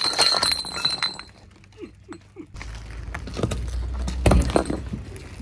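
Glass beer bottles crushed under a car tyre: a sharp shattering crash, then crackling and clinking of broken glass. A few seconds in, a low rumble from the car comes in, and several more loud cracks follow as another bottle bursts under the tyre.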